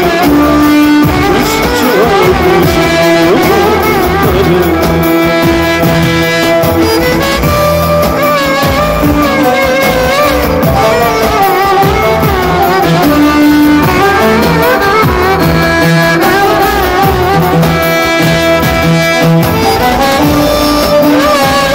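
Violin and electronic keyboard playing a tune together, amplified through PA speakers. The violin carries a wavering melody over held keyboard notes and a repeating bass line.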